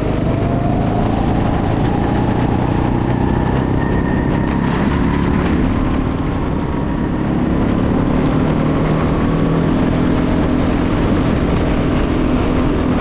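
Go-kart engine heard onboard at speed, its pitch rising as it accelerates over the first few seconds. It dips briefly around the middle, then runs on steadily at high revs.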